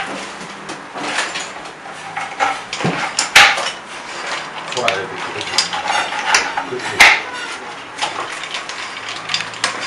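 Spoon stirring vegetables in a pot on the stove, scraping and clattering against the pot in quick irregular clicks, with two louder knocks about three and seven seconds in.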